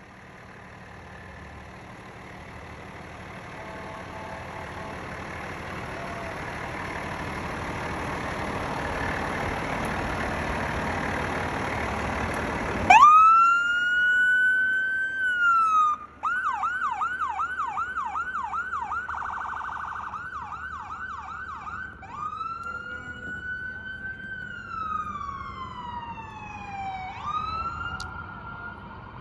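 Fire truck approaching slowly: its engine and tyre noise on the snowy road grow steadily louder. About thirteen seconds in, its electronic siren cuts in suddenly with a rising wail, then switches to a fast yelp of about three sweeps a second. It then returns to a slow wail that rises, holds and falls.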